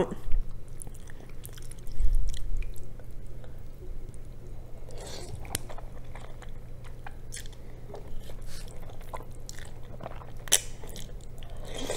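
Wet chewing of a large mouthful of jajangmyeon (black bean noodles), with scattered sharp mouth clicks and smacks. There is a low thump about two seconds in.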